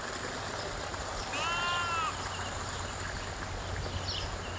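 A goat bleating once, a little over a second in: one high call that rises and falls and lasts under a second.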